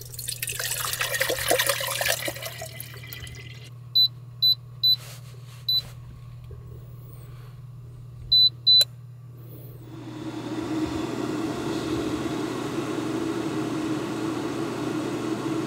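Water poured from a plastic jug into a gooseneck electric kettle, then a series of short beeps from the kettle base's buttons: four, then two more. From about ten seconds in, the kettle heats the water with a steady rushing sound, over a low steady hum.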